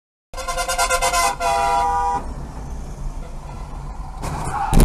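A car horn honking in two blasts that together last about two seconds, followed by steady engine and road noise that swells into a sudden loud noise near the end.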